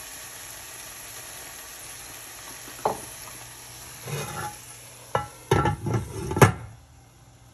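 Shrimp and tomato sauce sizzling in a nonstick frying pan, with a silicone spatula knocking and scraping against the pan a few times. Near the end a glass lid clatters onto the pan, its loudest knock, and the sizzling then drops off to a faint hiss under the lid.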